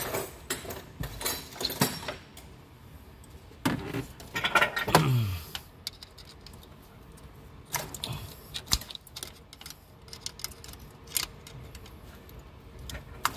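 Steel tools clicking and clinking against the rocker arms and camshaft of a RAM 1500's 4.7-litre V8 as a screwdriver is used to pry the rocker arms free for a lifter change, in irregular sharp clicks. A louder, brief sound sliding down in pitch comes about five seconds in.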